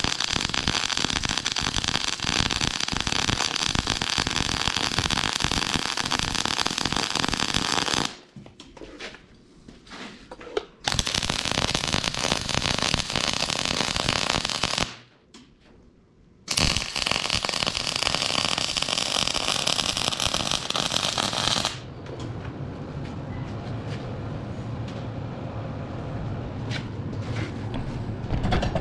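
MIG welder arc crackling steadily as beads are laid on a steel axle housing, stopping and restarting: three runs with short breaks about 8 and 15 seconds in. After the last run ends, about 22 seconds in, only a quieter steady hum is left.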